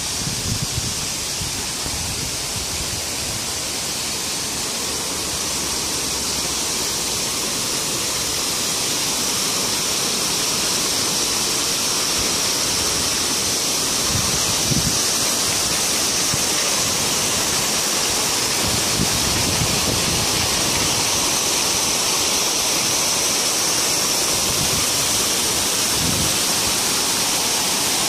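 Steady rush of water falling from a small garden waterfall down a rock wall, growing gradually louder, with a few brief low bumps.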